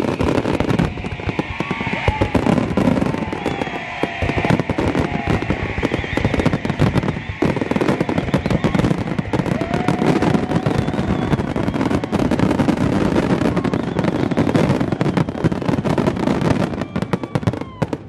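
Aerial fireworks display at full barrage: a dense, continuous stream of shell bursts and crackling, with many sharp reports overlapping throughout.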